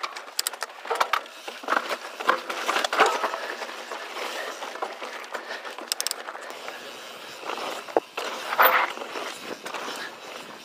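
Mountain bike rolling over rough trail: tyres crunching on dirt and rock, with irregular clicks and rattles from the bike over bumps.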